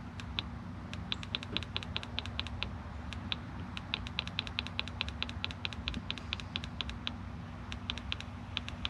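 Rapid clicking of a mini excavator's cab radio tuning button, pressed over and over, several presses a second in runs with short pauses, over a steady low hum.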